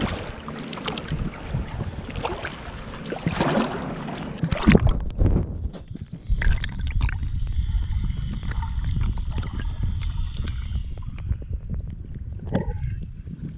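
Water splashing as a big red drum thrashes at the surface and swims off through shallow water. After about five seconds the sound turns muffled and gurgling, with small waves lapping, as the microphone dips to the waterline and under it.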